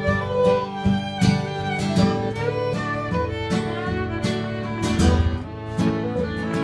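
Fiddle playing the melody over steadily strummed acoustic guitar.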